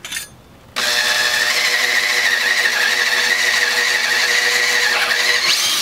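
Makita cordless drill with a 3/8-inch bit boring into a wooden 2x3, making the wide counterbore for a screw. The drill's steady whine starts about a second in and stops near the end.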